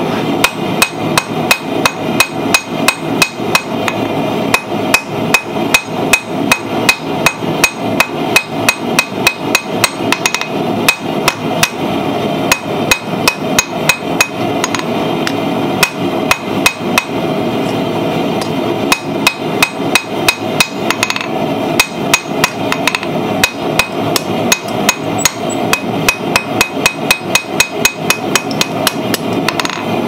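Hand hammer striking red-hot steel angle iron on an anvil, a fast steady run of blows about three a second, broken by a few short pauses, over a steady background noise.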